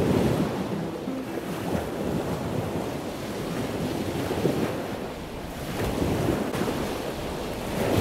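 Ocean surf washing on a sandy beach, rising and falling in slow swells, with wind buffeting the microphone.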